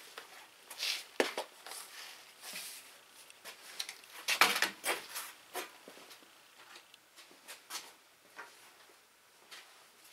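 Scattered knocks, clicks and rustling of a person moving about a workshop and handling things, with the loudest knocks about a second in and again around four and a half seconds.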